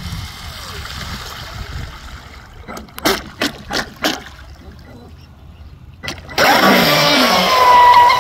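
Pro Boat Sonicwake RC speedboat's brushless electric motor: a few short throttle blips with the boat close by, then about six seconds in it goes to full throttle with a sudden loud high-pitched whine and a rush of spray.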